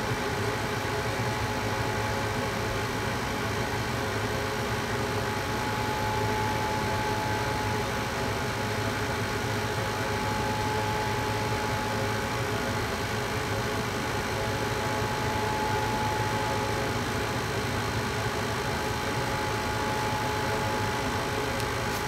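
Two-stage gas furnace running in low stage, its draft inducer fan and lit burner making a steady whir with a thin steady tone; the circulating blower is not yet running.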